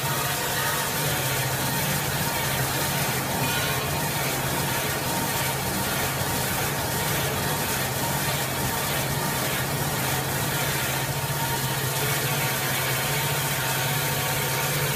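Automatic band-saw cutting machine for toilet paper rolls running steadily: a continuous low motor hum and a high whine, with the hiss and faint regular clatter of the saw and roll feed.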